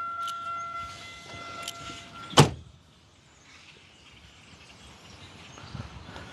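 A car's steady electronic warning tone sounding with the door open, cut off about two seconds in by a loud thud as the car door is shut. A couple of light clicks come before it.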